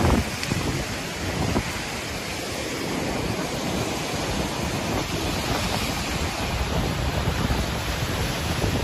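Cyclone-force wind buffeting the microphone over the steady rush of heavy surf breaking on a rocky shore.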